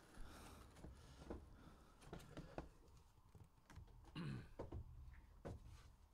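Faint, scattered light taps, clicks and a brief rustle of cardboard as a shipping case of hobby boxes is opened by hand.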